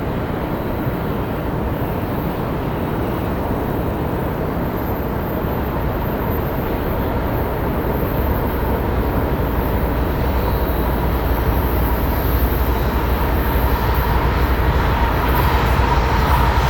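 Freight train approaching on the main line, its rumble growing steadily louder.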